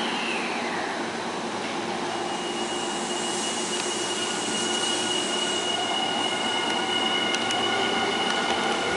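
Nankai 7020/7000-series electric train rolling slowly into a station platform, its running noise slowly growing louder. A steady high squeal sets in about two and a half seconds in and holds as the train slows for its stop.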